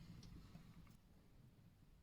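Near silence: quiet room tone with two faint small clicks in the first second.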